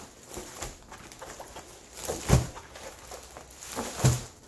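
A large, heavy rolled diamond painting canvas being unrolled, its stiff canvas rustling and crackling, with two louder low thumps, one a little past two seconds in and one near the end.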